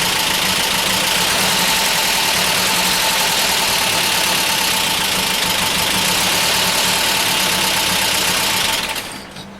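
Mazda B2200 four-cylinder engine idling roughly, misfiring on two of its four cylinders (3 and 4 not firing) after a cylinder head install. The sound drops off sharply about nine seconds in.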